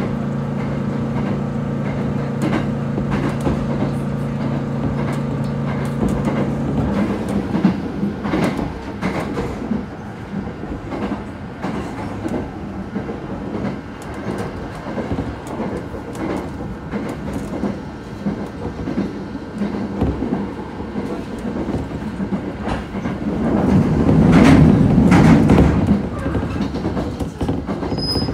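Train running, heard from inside the carriage: a steady rumble with wheels clicking over rail joints. A steady hum stops about seven seconds in, and the rumble swells louder for a couple of seconds near the end.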